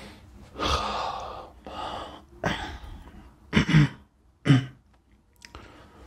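A man's long, breathy sighs and exhalations, then two short, loud coughs about three and a half seconds in, voiced as if he has fallen ill.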